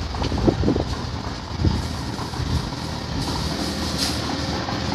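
Steady low rumble of traffic, with a few knocks in the first two seconds. About three seconds in, the hiss of a compressed-air blow gun joins it as a mechanic blows a small motorbike part clean.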